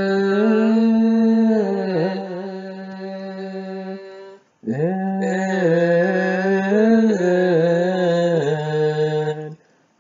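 A solo male voice chanting an Ethiopian Orthodox psalm verse in English, drawn out over long melismatic notes with small ornamental turns. It breaks off for a breath about four seconds in, resumes, and stops just before the end.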